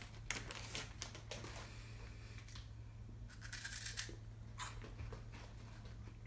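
Plastic snack bag crinkling as a hand reaches in for crunchy corn potage crisps. A little after halfway, a chip is bitten with a few crisp crunches.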